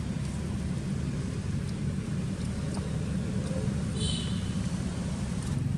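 Steady low outdoor rumble, with a brief high chirp about four seconds in.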